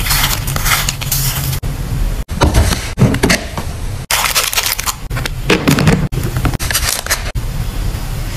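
Crinkling and rustling of clear plastic sleeves, wrappers and cards being handled. Short clips cut in abruptly one after another every second or two.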